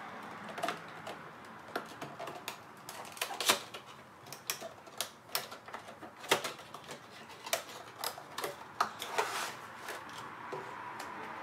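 Small cardboard model-aircraft box being handled and opened by hand: irregular clicks, taps and light scrapes of fingers and cardboard as the end flap is worked open.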